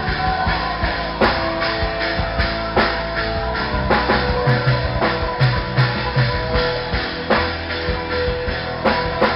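Live worship band playing upbeat rock-style gospel music: a drum kit beating with electric guitars.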